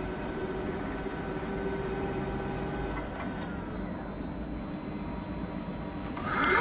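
Spectral MM automatic milling machine running a feed pass, its face mill spindle turning while the table feeds along the Y axis: a steady machine hum with thin whining tones. The cutter is not touching the metal, so there is no cutting noise. About halfway the high whine changes pitch, and near the end a louder motor whine starts up.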